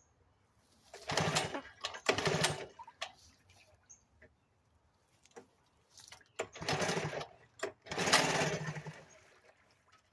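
Sears Gamefisher two-stroke outboard motor being pull-started with the choke out, turning over in several short bursts of about a second each, with quiet gaps between them, without catching and running.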